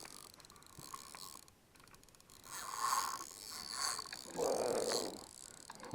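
Two bursts of scraping, rustling noise, about a second and a half apart, as a freshly hooked carp is played on rod and reel.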